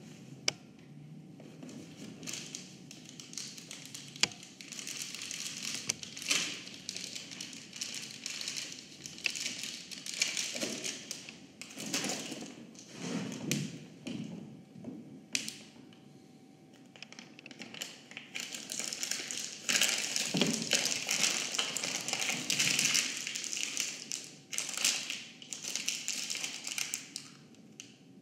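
Sheets of paper rustling and being crumpled in irregular bursts, with occasional sharp taps and knocks. The crumpling is densest and loudest in the last third.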